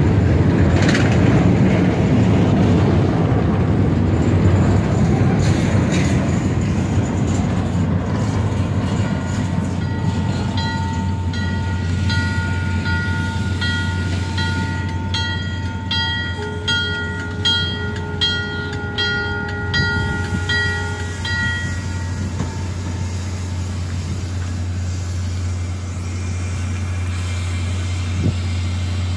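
A double-stack freight train rolls past, its wheels and cars rumbling and rattling. Then a train horn sounds one long steady chord for about ten seconds, with a bell ringing rapidly over it, under a low steady diesel hum.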